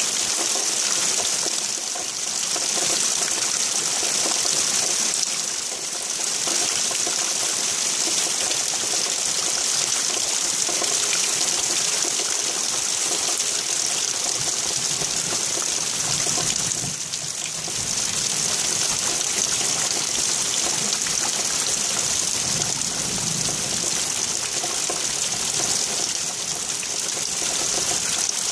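Steady heavy rain hissing down, with a faint low rumble about halfway through.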